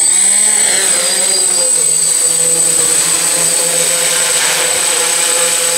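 DJI F450 quadcopter's four electric motors and propellers running with a steady buzz as it lifts off and flies, with a constant high-pitched whine above it.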